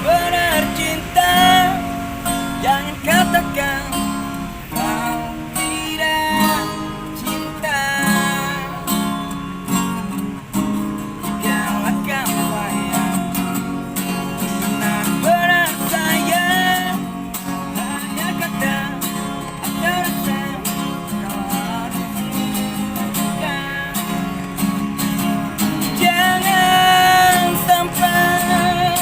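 A street busker singing a melody with vibrato, accompanied by a strummed acoustic guitar.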